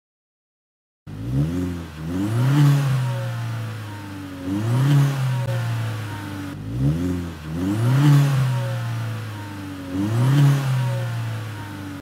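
Exhaust of a first-generation Chevrolet Cruze with a turbo-back system (downpipe, midpipe, high-flow resonator, Magnaflow muffler), revved repeatedly from idle. It starts about a second in, then rises and falls in pitch about six times, dropping back to a steady idle between revs.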